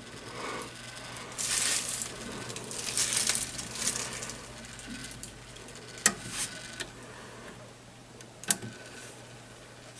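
Handling noise at the workings of a grandfather clock: a few seconds of rustling and scraping, then two sharp clicks about two and a half seconds apart.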